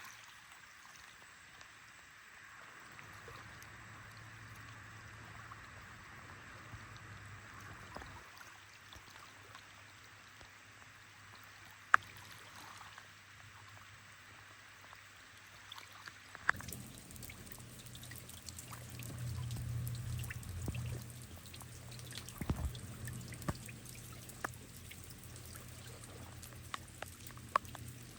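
Steady rain with water trickling and sharp drops ticking, one louder tick about twelve seconds in. About sixteen seconds in the sound changes suddenly to a fuller, heavier patter with more frequent drop hits.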